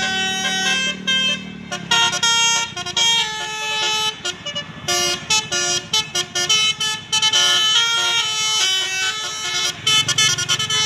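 Telolet basuri musical bus horn playing a tune of quickly changing notes. A bus engine rumbles underneath at the start and again near the end.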